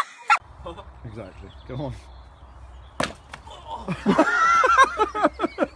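A single chopping blow on firewood about three seconds in, followed by a person's long cry and then quick repeated vocal bursts.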